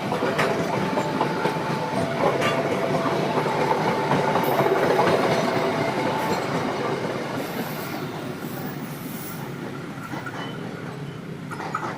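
KA Kaligung passenger train clattering over a level crossing, its wheels rattling on the rail joints. The crossing's warning alarm sounds a two-tone signal, alternating high and low about once a second, and stops about six seconds in. The train noise is loudest midway and then fades as the train moves off.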